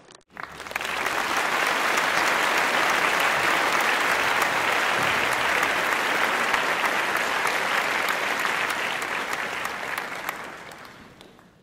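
Applause, many hands clapping steadily; it starts suddenly and fades out near the end.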